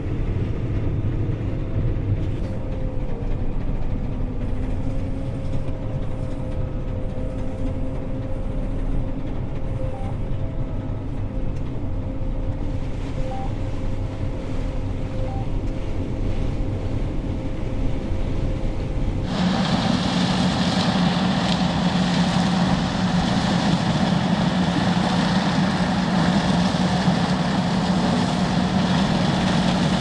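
John Deere T670i tracked combine harvester running while threshing grain corn. At first it is a muffled steady hum with a faint whine, as heard inside the cab. About two thirds of the way in it changes abruptly to the louder, brighter running sound of the machine from outside, with a steady low drone.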